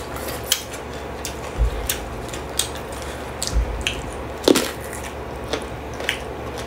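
Close-up eating sounds: crisp crunches and clicks of raw vegetables such as cucumber and fresh herbs being bitten and chewed, at irregular moments, with two low thumps partway through.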